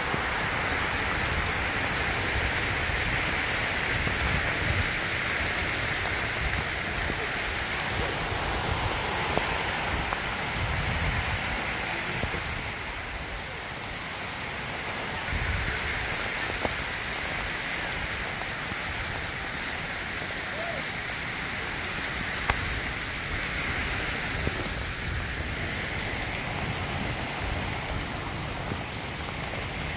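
Heavy rain falling on ground, roofs and standing water: a steady hiss, with a few sharper single taps, the loudest one about two-thirds of the way through.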